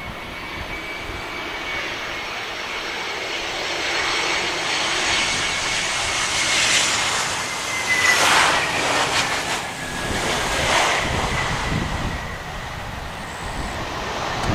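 Airbus A321ceo airliner on its landing approach passing close by. Its jet engines whine and rush, building to a peak about eight seconds in, and a high fan tone drops slightly in pitch as the plane passes, then eases off.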